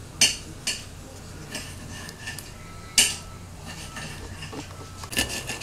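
A few sharp metallic clinks and knocks, the loudest about three seconds in and several more close together near the end, over a steady low hum.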